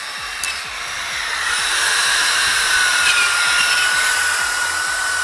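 Electric power tools with wire wheels spinning against rusty steel rear suspension arms and hubs, scouring off rust. A steady high whine with a rasping hiss grows louder about a second in, then holds.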